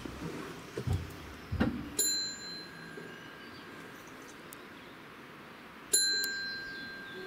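A bell struck twice, about four seconds apart, each stroke ringing on for a second or so; the second is louder. A couple of short knocks come just before the first stroke.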